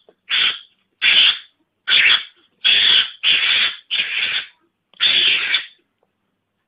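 Mongoose (garangan) lure call: a series of short, harsh, hissing calls, seven in quick succession about two-thirds of a second apart, then a pause near the end.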